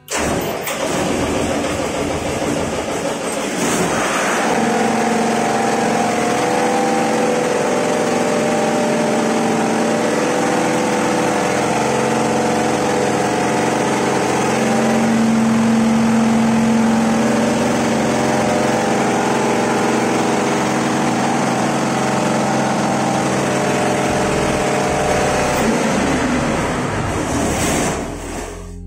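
Ship's emergency generator diesel engine running loud and steady under its weekly start test, a hum of several steady tones over the engine noise.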